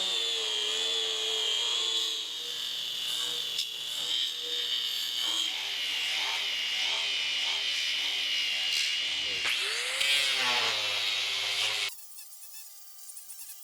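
Angle grinder with a 4.5-inch 36-grit fiber disc grinding a steel weld bead, its motor giving a steady high whine. The whine dips briefly and picks up again a little past the middle, then cuts off suddenly near the end.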